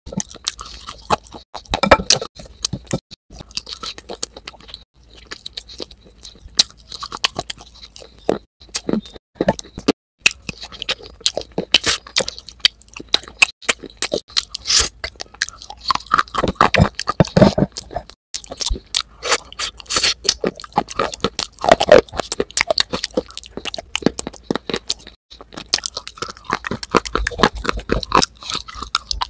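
Close-miked crunching and chewing of baked clay pieces coated in wet clay paste: many sharp crunches in quick runs, with short gaps between bites.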